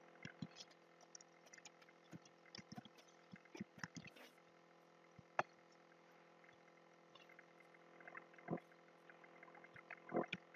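Faint steady room hum with scattered computer mouse clicks and keystrokes.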